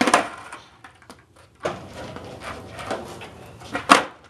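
Wooden skateboard on concrete: a sharp pop of the tail at the start of a flatground trick, clattering of the board and wheels, then a loud clack just before the end as the board hits the ground again.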